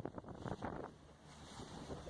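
Wind buffeting the microphone aboard a sailing boat under way, easing briefly about a second in before gusting again.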